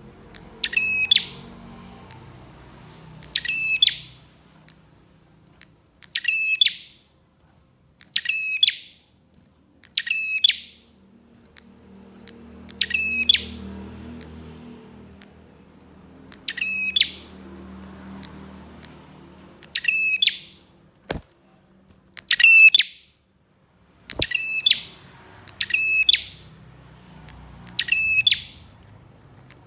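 Prenjak (prinia) calling: a loud, sharp, chattering chirp repeated about every two seconds. There are two sharp clicks about two-thirds of the way through.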